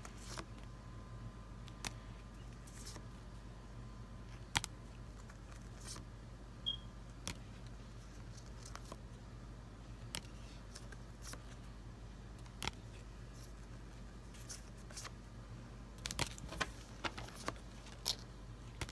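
Trading cards handled and flipped through by hand: scattered light clicks and snaps of card stock, coming more often near the end, over a steady low hum.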